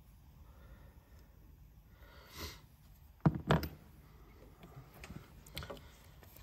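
Hands working a diesel fuel injector loose from a Volvo 1.6D engine's cylinder head: faint handling noise, with two sharp clicks about three seconds in and a few lighter clicks later.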